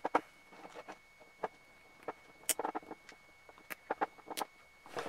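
Small irregular clicks, taps and scrapes of a cordless drill's plastic planetary gearbox and wire gear-shift bracket being handled and fitted together, with one sharper click about two and a half seconds in.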